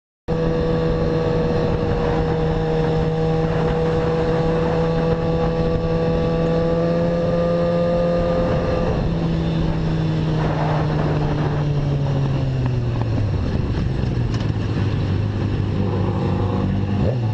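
Motorcycle engine running at steady high revs over wind noise, its note falling about two-thirds of the way through as the revs drop.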